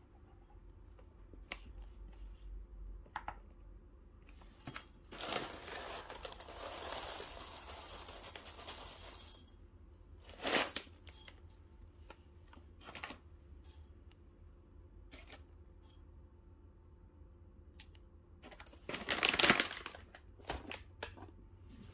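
Whole coffee beans pouring from a bag into a small ceramic bowl, a steady rattle for several seconds in the middle, with the bag crinkling; a louder rustle of the bag near the end as it is lifted and folded.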